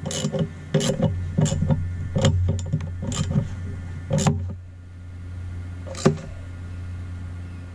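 Gloved hands handling a metal antenna mast mount and its bracket: a quick run of metal clicks and knocks for about four and a half seconds, then one more sharp knock about six seconds in, over a steady low hum.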